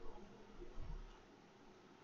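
Quiet room tone, with a couple of faint, soft low sounds near the start and about a second in.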